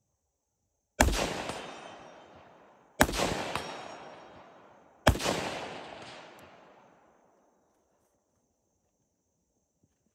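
Three shots from a Recce rifle, a 5.56 NATO AR-15-pattern precision rifle, fired about two seconds apart. Each shot is followed by a long echo that fades over about two seconds.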